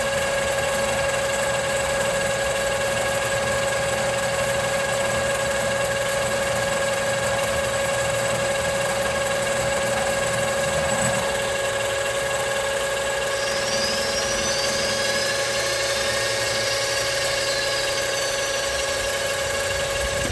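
Metalworking machine tool running steadily while cutting metal, a constant hum with a steady whine. A faint high warbling appears about two-thirds of the way through. The sound cuts off abruptly at the end.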